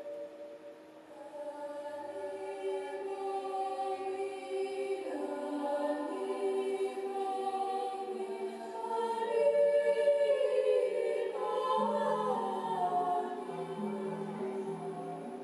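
Slow background music with a choir singing long-held chords. It swells about two-thirds of the way in, and a repeating low note pattern comes in near the end.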